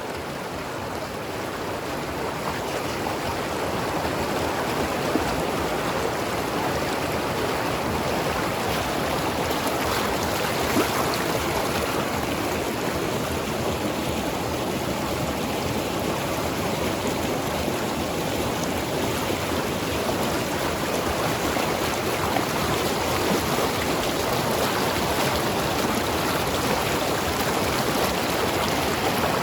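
Mountain river flowing over rocks: a steady rushing and gurgling of water that swells slightly over the first few seconds, then holds even.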